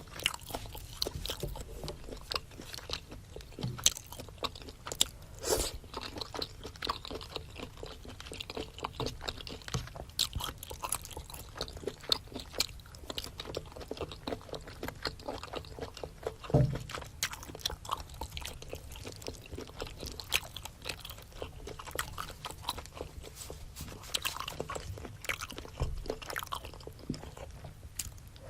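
Close-miked eating of spicy seafood boil: steady biting and chewing, with many small irregular crunches and clicks.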